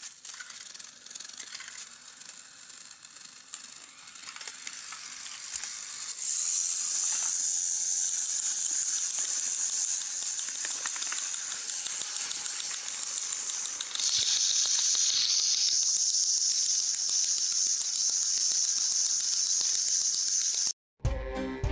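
A long line of coupled battery-powered toy train engines crawling across carpet, their small electric motors and gears making a high-pitched whirring rattle. It gets louder about six seconds in and again around fourteen seconds as more engines come close. Near the end it cuts off abruptly and music starts.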